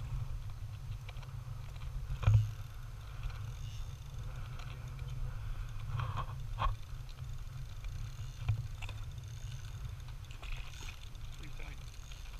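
Steady low rumble of wind and water around an open boat at sea, with a sharp knock about two seconds in and a few smaller knocks later.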